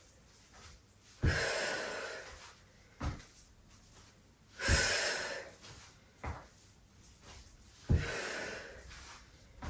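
A woman's sharp exhales of exertion during squats and curtsy lunges: three breaths about three seconds apart, each trailing off over about a second. A short soft thud, a foot landing on the exercise mat, comes between each breath.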